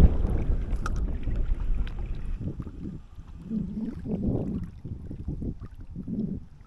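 Low, uneven rumble of wind buffeting the microphone, strongest at first and easing off, with weaker gusts later.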